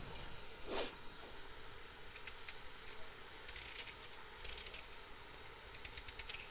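Faint, crisp crunching and rustling, a few times at irregular intervals, as a raw onion is roughly cut by hand and its pieces drop onto the meat in a steel pressure cooker.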